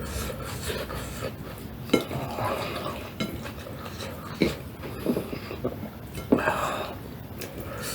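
Cutlery clinking against a plate several times while eating a meal of rice, spinach soup and fried food.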